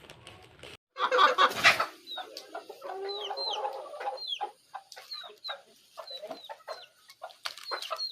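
Birds calling: many short, high chirps, each falling in pitch, over lower clucking calls. A loud rustling noise comes about a second in.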